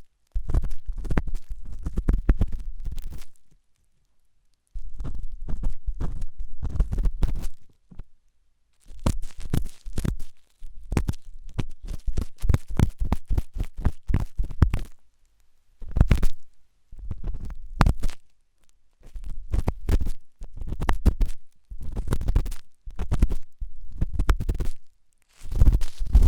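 Ear pick scraping and scratching hard inside an ear right at the microphone: dense, rough, low scratching in strokes that come in runs of one to three seconds, with brief pauses between them.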